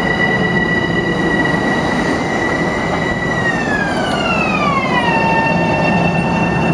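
Metro-North electric multiple-unit train pulling away along the track, running over a steady rumble with a high whine. About halfway through, the whine glides down by about an octave, then holds steady.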